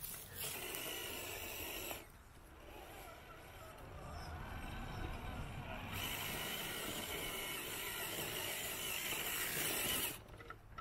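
Electric RC scale crawler's motor and drivetrain whirring as it climbs a loose dirt slope, tyres scrabbling in the dirt. The whir drops away about two seconds in, builds again from about four seconds, and cuts off shortly before the end.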